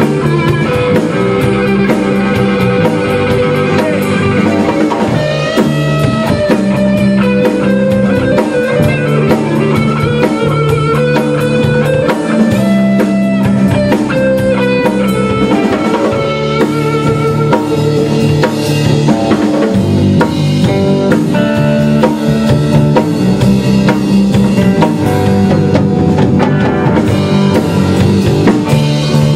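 Rock band playing an instrumental passage: a full drum kit and electric guitars together, with no vocals.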